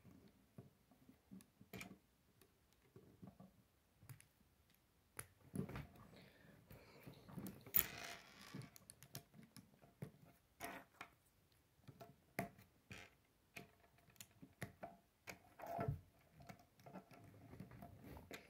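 K'nex plastic rods and connectors being handled and snapped together: irregular small clicks and rattles, with a few sharper snaps.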